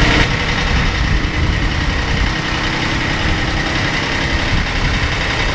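Bolens G152 subcompact tractor's diesel engine idling steadily.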